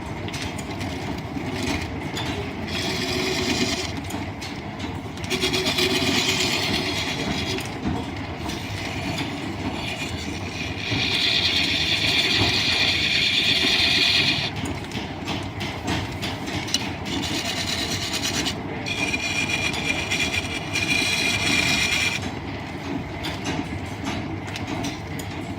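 Line-shaft-driven wood lathe running with a steady mechanical clatter from the shafting and belts, while a turning tool cuts the spinning wood in several stretches of hissing, the longest about three seconds midway.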